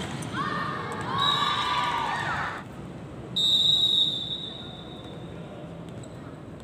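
Volleyball players' high-pitched shouts and calls, then a referee's whistle blast of about a second, fading out.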